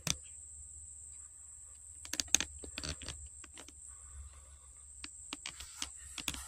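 Scattered light clicks and taps at uneven intervals, bunched about two to four seconds in and again near the end, over a faint steady high-pitched whine.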